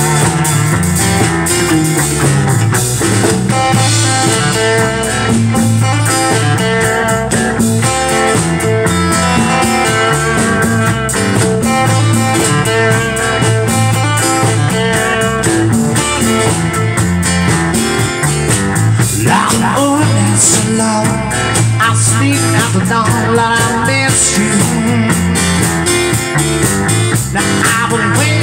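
Live music from an acoustic-electric guitar and drums playing a steady groove; a man's singing voice comes in near the end.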